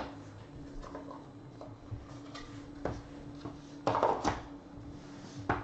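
Handling of a small cardboard trading-card box and its cards: a sharp knock as the lid comes off, then scattered light taps and rustles, loudest in a short cluster about four seconds in as the cards are slid out.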